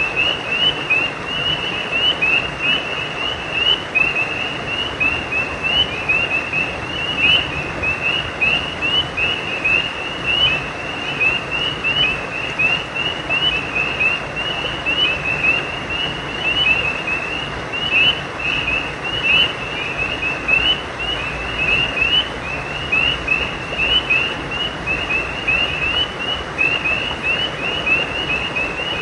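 A night chorus of many frogs calling, a dense unbroken stream of short, high chirps overlapping one another, over a steady background hiss.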